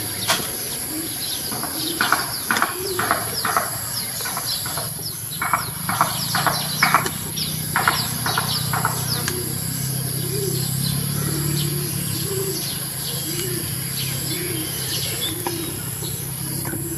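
Birds chirping in short, sharp calls, then a dove cooing in a slow, regular series of low calls about once a second through the second half, over a steady high-pitched whine.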